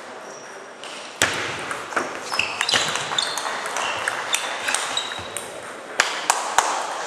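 Table tennis rally: the celluloid ball clicking sharply off bats and table in quick succession, starting about a second in, with three loud hits about six seconds in.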